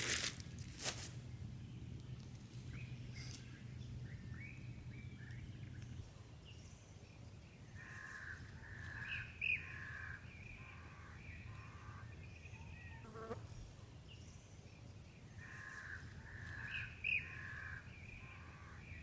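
Birds calling outdoors in two similar runs of several notes, each with a sharp rising note. Two sharp knocks near the start, and a low steady hum that stops about a third of the way in.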